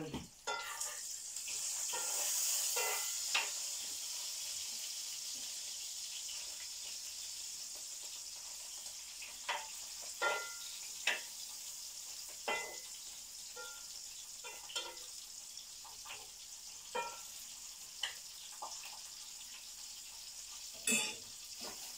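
Sausages frying in a pan: a steady sizzle that swells about two seconds in and slowly eases, with scattered sharp pops and spits of fat.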